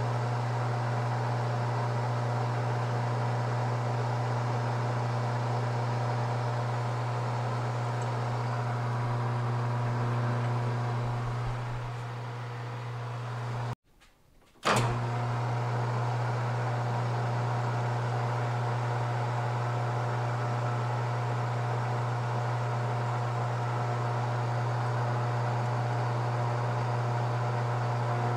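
Small metal lathe running at a steady speed with a constant motor hum as a tailstock drill is fed into a white Delrin part. The hum breaks off for about a second about halfway through, then starts again abruptly with a short sharp sound; the lathe runs on while a starter drill bit is fed in.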